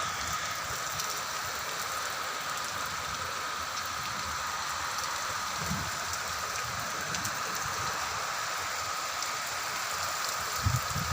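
Rain falling steadily, with a few low gusts of wind on the microphone near the end.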